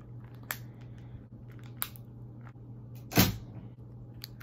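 Plastic clicking of a slide-out keyboard phone being twisted and pried apart by hand, then one loud sharp crack about three seconds in as the keyboard section snaps off the phone.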